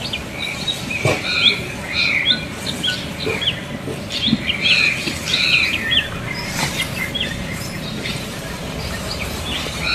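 Small birds chirping over and over in quick short calls, busiest in the first six seconds and thinning out after, over a steady outdoor hiss.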